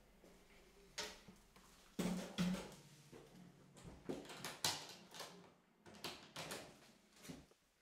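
Irregular knocks, clunks and footsteps as a man walks across a small room and packs his acoustic guitar into its case, with a couple of heavier thuds about two seconds in.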